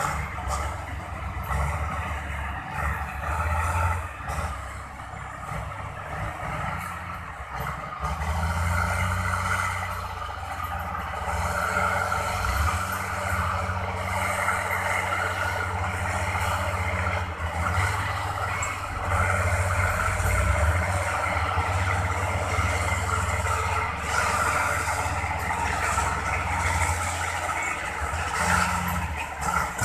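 Heavy diesel engines running steadily: a dump truck running with its bed raised to tip soil, with another truck and a crawler bulldozer working close by. The engine noise gets louder about eight seconds in.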